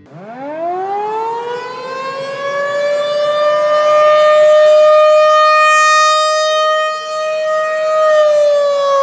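Rotating outdoor tornado warning siren on a pole sounding a tornado warning: it winds up from a low pitch over about three seconds, holds a steady wail, and starts to wind down near the end. Its loudness swells and dips as the horn turns.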